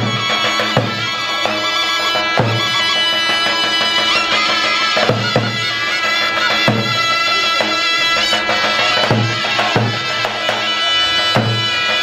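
Albanian folk dance music: a shrill, reedy wind instrument plays a continuous melody over heavy, deep beats on a large double-headed drum (lodër), struck roughly every one to two seconds.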